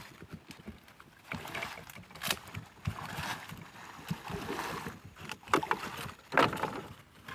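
A person wading through shallow swamp water thick with floating plants: irregular splashing and sloshing of legs pushing through the water and vegetation, with the loudest splashes near the end.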